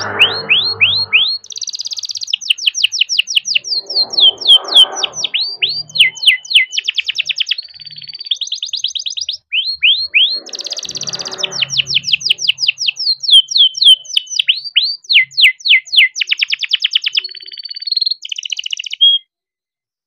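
Young male domestic canary singing a long rolling song: fast runs of repeated high notes and trills, switching from one phrase to the next, with series of quick downward-sliding notes. The song stops suddenly about a second before the end.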